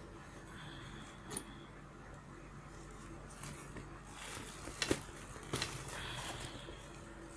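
Hands handling a nylon sling bag: fabric rustling with a few sharp clicks from its zipper pull and hardware, the loudest clustered about five seconds in.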